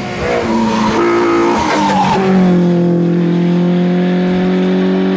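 Rally car engine running hard on a hill-climb stage. Its pitch jumps up and down in the first two seconds, then holds one steady note that slowly falls.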